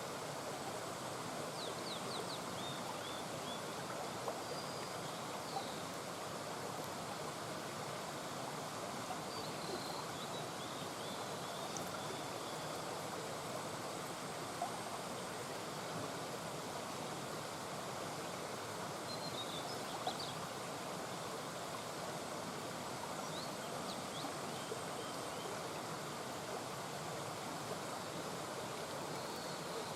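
Shallow mountain brook babbling steadily over stones. A few faint high chirps come and go above it.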